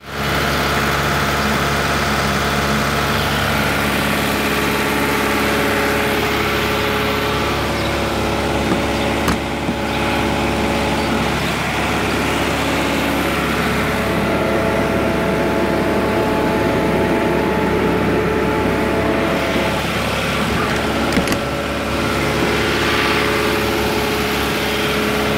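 Hyundai Porter II truck engine idling steadily, with a couple of faint clicks.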